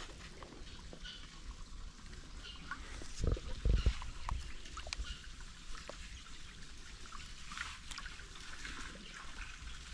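Water pouring and trickling steadily out of a fish pond's outlet pipe, with scattered small knocks and a couple of low thumps about three and a half seconds in.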